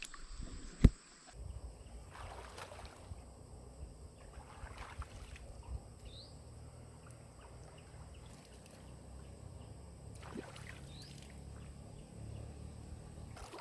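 Quiet water sounds of a log raft being tried in a stream: faint swishes and sloshing over a low steady rumble, with one sharp click about a second in.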